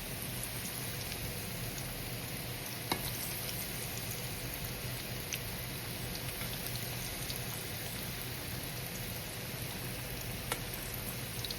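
Breaded fish nuggets deep-frying in hot oil: a steady sizzle, with a sharp pop about three seconds in and another near the end.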